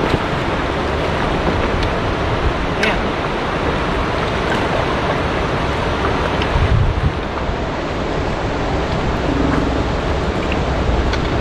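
Steady rushing water from the dam's outflow, with a brief low buffet of wind on the microphone about seven seconds in.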